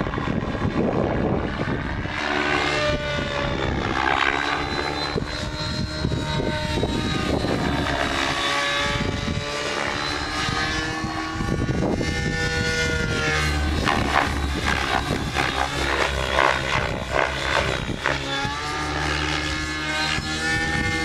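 Electric 700-size RC helicopter (Assault 700 DFC kit, Align motor on a 12S lipo) in flight: the whine of its motor and main rotor runs on continuously. Its several tones keep sliding up and down in pitch as the helicopter swings about the sky.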